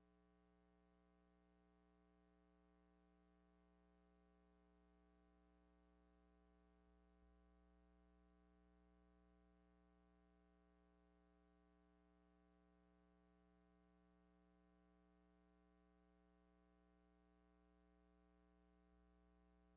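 Near silence: only a faint steady hum with no other sound, the soundtrack of a silent film transfer.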